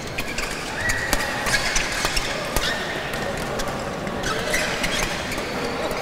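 Badminton rackets striking the shuttlecock in a doubles rally: a string of sharp hits about a second apart, over the background noise of the hall.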